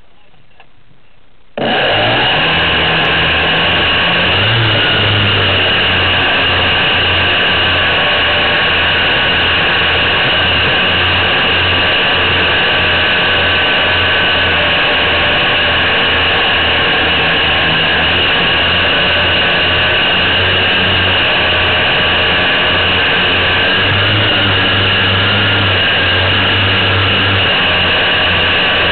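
A radio-controlled model PBY Catalina's motors and propellers start up about a second and a half in, then run steadily as a loud whine with a fast low chop, close to the onboard microphone.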